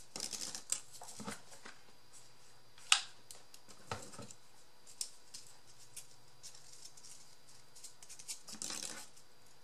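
Cardboard and cardstock being handled and cut with scissors: scattered rustles, taps and snips, with one sharp click about three seconds in.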